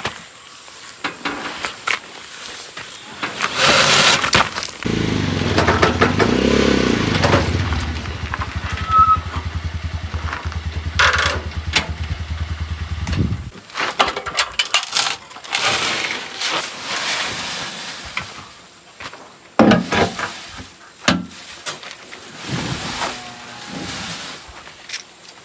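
Sand being unloaded from a three-wheeled cargo vehicle: irregular scraping, crunching and knocks, with a motor running steadily for about eight seconds in the middle.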